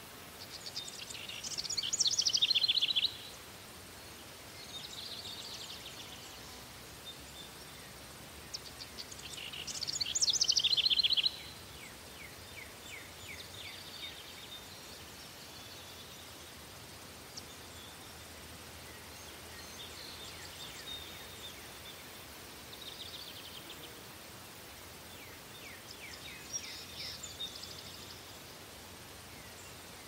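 Songbirds singing in short, rapid, trilling phrases, two loud ones near the start and about ten seconds in, and fainter ones after, over a faint steady chirring of crickets and a soft outdoor background hiss.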